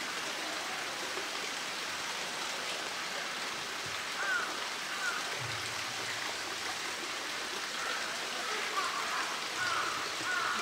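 Steady rush of flowing water, with a series of short high chirps from about four seconds in.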